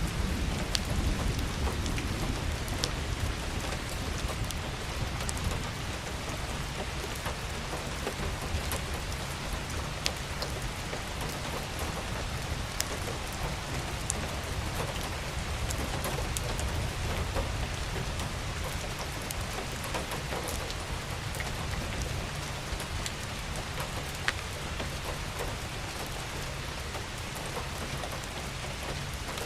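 Steady rain falling, with scattered individual drop ticks over an even hiss and a constant low rumble underneath.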